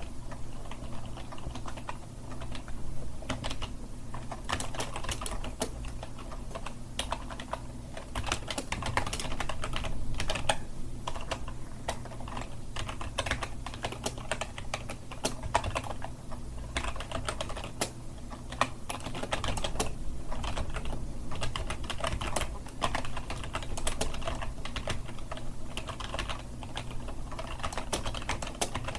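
Continuous typing on a computer keyboard: a fast, irregular stream of key clicks, with a steady low hum underneath.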